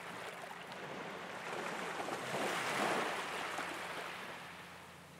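Sea waves washing up on a sandy shore, a rush of surf that swells to its loudest about three seconds in and then fades away.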